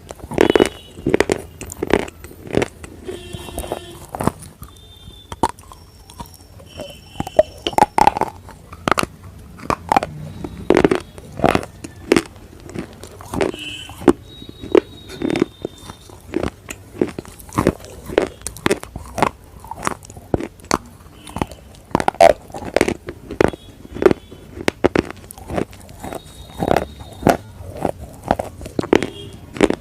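A slate bar being bitten and chewed: a run of sharp, irregular crunches and crackles, several a second, as the pieces break between the teeth.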